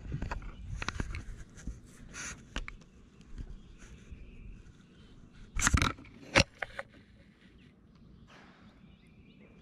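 Scattered clicks and scrapes of a spinning rod and reel being handled, with two sharper knocks about six seconds in, then quieter.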